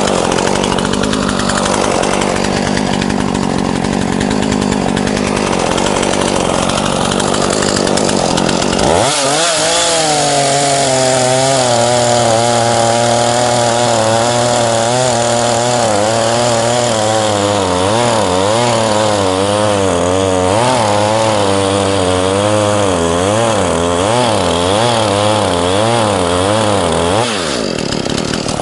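ZimAni 450 two-stroke gasoline chainsaw cutting into the trunk of a standing spruce during felling. For the first third it runs roughly without a clear engine note. About nine seconds in it goes to full throttle and holds high revs under load, the pitch wavering up and down as the chain bites, until the engine note drops away near the end.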